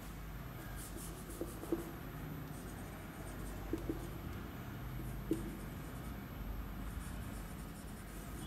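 Marker pen writing on a whiteboard: faint scratchy strokes with a handful of light taps as the pen touches down, over a steady low hum.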